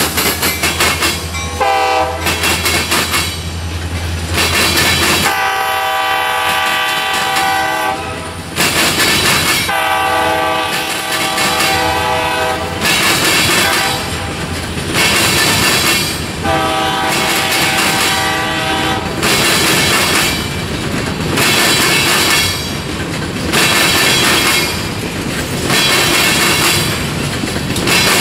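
Empty covered hopper cars of a grain train clattering over a railroad diamond, their wheels banging across the crossing in an even repeating rhythm. A locomotive horn sounds several long blasts, the last ending about two-thirds of the way through.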